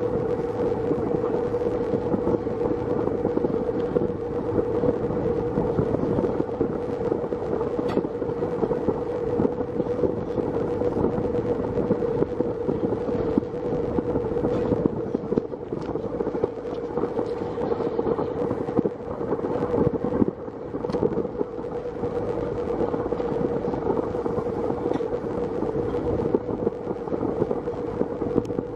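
Sightseeing boat's engine running steadily: a constant hum with a rumbling wash of noise under it.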